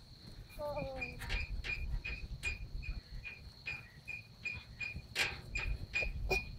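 Crickets chirping in a steady rhythm, about two and a half chirps a second, over a continuous high insect trill. A short falling call sounds about half a second in.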